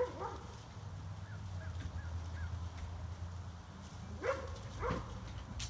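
Canine play vocalisations: short yelping calls, one at the start and two close together about four and five seconds in, with faint high squeaks between them, over a steady low hum.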